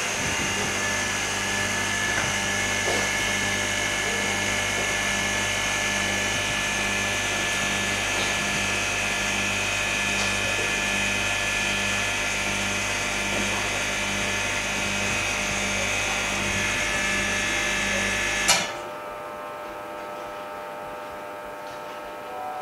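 Phone-screen laminating machine running its lamination and bubble-removal cycle: a steady electric hum with a high whine. It cuts off suddenly with a click near the end, leaving a faint low hum.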